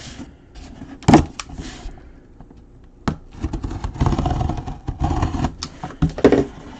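Cardboard box and packaging being handled and opened by hand. There are a couple of sharp knocks, then a stretch of scraping and rustling in the second half.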